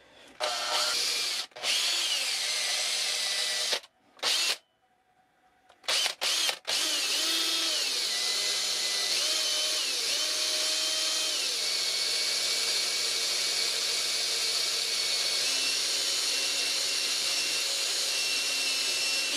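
Cordless drill boring a 1/16-inch hole through a wooden whirligig leg and the rod pinned in it. The drill starts and stops several times in the first seven seconds. It then runs steadily, its motor whine shifting slightly up and down in pitch as it cuts.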